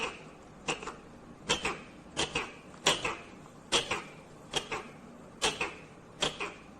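Indian ringneck parrot giving a run of short, sharp calls that drop in pitch, about one every 0.8 seconds, nine in all.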